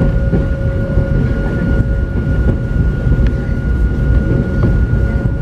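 Hakone Tozan Railway Moha 1-type electric railcar running on the track, heard from inside its cab: a steady low rumble with a constant hum and a few sharp clicks from the wheels and running gear.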